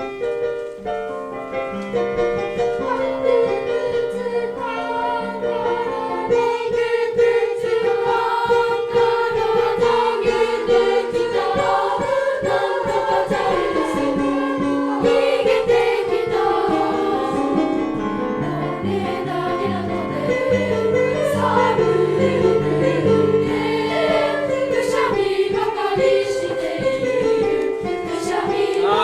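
A class choir of students singing a song together in several voices, with piano accompaniment.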